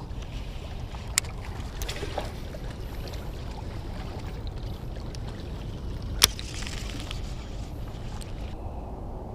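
A steady low rumble, with a few sharp clicks from a fishing reel being handled and cranked. The loudest click comes about six seconds in.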